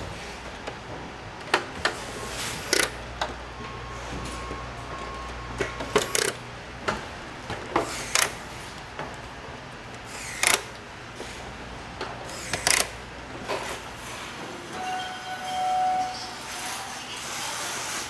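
Hand-assembly sounds: sharp plastic clicks and knocks, about a dozen scattered through, as wired parts and insulation are fitted into a window air conditioner's plastic housing. A low steady hum lies beneath for the first six seconds, and a few brief tones sound near the end.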